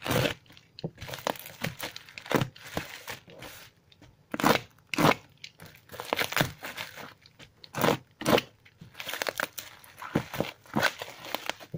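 Box cutter slicing into a plastic-wrapped parcel and the plastic wrapping being pulled open, in irregular bursts of crinkling and crackling.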